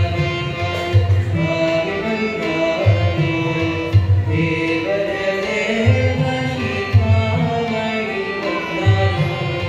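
Devotional song sung live by a male voice with Yamaha electronic keyboard accompaniment and a deep drum beat about once a second.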